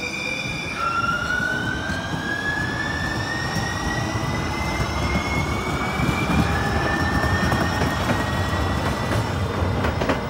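Two-car Muni train of Siemens light rail vehicles pulling away: a whine from its electric propulsion climbs steadily in pitch as it gathers speed. It drops back and climbs again about a second in and again past the middle, over the rumble of the wheels on the rails.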